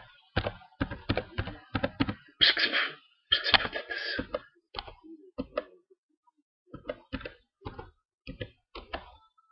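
Irregular sharp clicks and knocks, about two to three a second, with two short hissing bursts between about two and a half and four seconds in and a brief pause about six seconds in.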